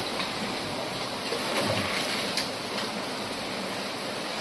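Steady rushing noise of floodwater.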